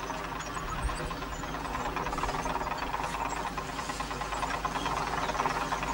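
Tractor engine running steadily, with the clatter of a farm elevator's moving parts.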